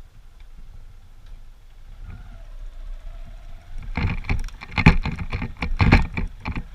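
Honda CG125 single-cylinder motorcycle on the move along a rough trail: low engine rumble with road and wind noise, then from about four seconds in a run of loud, irregular knocks and buffeting.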